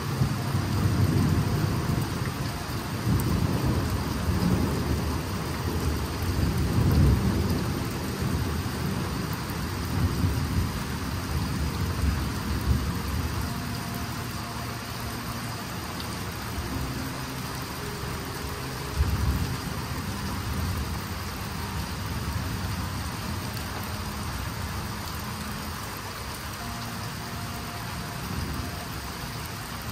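Thunder rumbling over steady rain. The rumble is heaviest through the first dozen seconds and then dies away, with one short surge about nineteen seconds in.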